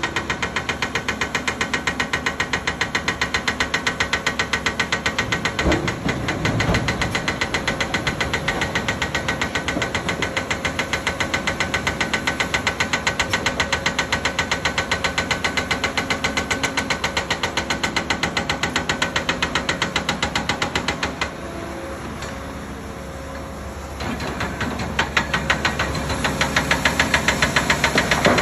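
Cat 395 excavator's big C18 diesel engine working under load, with a fast, even pulsing and a single knock about six seconds in. It eases off for a few seconds past the middle, then comes back louder near the end.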